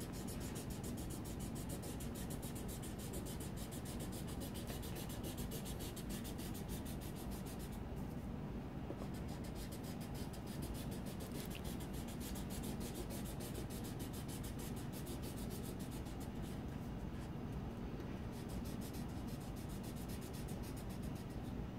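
Felt-tip marker rubbing across paper in steady strokes, faint, as a red border is coloured in along the sheet's edge.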